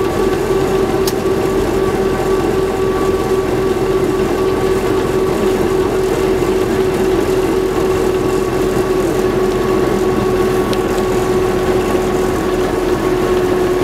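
1927 bus underway, heard from inside the passenger saloon: engine and running gear at a steady pace, with a steady whine held over the rumble.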